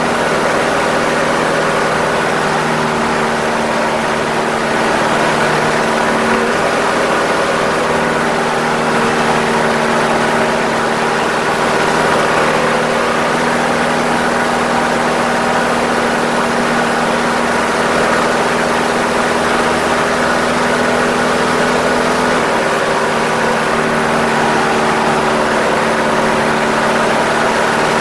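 Light aircraft's piston engine and propeller running steadily under power, heard from inside the closed cockpit canopy during aileron rolls. The engine note shifts slightly a few times.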